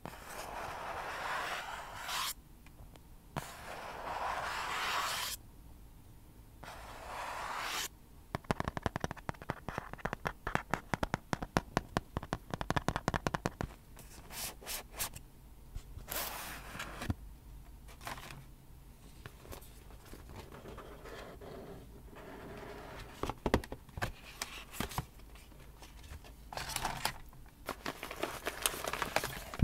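Fingernails scratching and rubbing across a cardboard box close to the microphone in long strokes, then a run of quick fingernail taps on the cardboard, followed by slower scattered taps and scratches.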